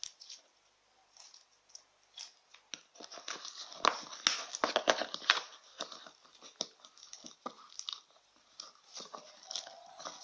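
Homemade slime being squeezed and kneaded by hand, giving a run of irregular wet clicks and crackles that come thickest in the middle.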